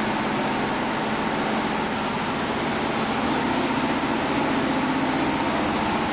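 A steady machine drone: a constant low hum under a broad hiss, unchanging throughout.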